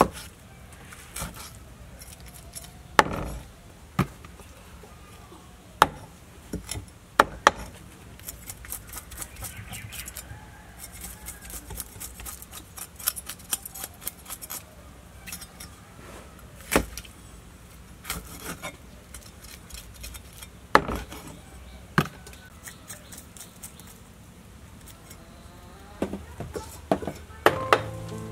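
A heavy cleaver chopping small fish on a thick wooden chopping block: sharp, irregular chops a second or more apart, with lighter taps and clicks between, and a quick cluster of chops near the end.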